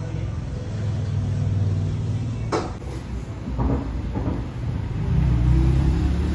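Low rumble of road traffic going by, swelling louder after about five seconds. A sharp click comes about two and a half seconds in, followed by a couple of fainter taps.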